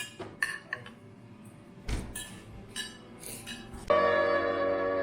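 Cutlery and dishes clinking in scattered, sharp knocks and chinks. About four seconds in, instrumental background music starts.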